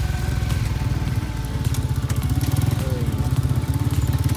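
A motor vehicle's engine running steadily close by, a low, even rumble.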